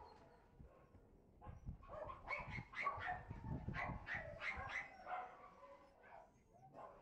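Dog barking, a quick run of short barks and yips from about one and a half to five and a half seconds in, then fading away.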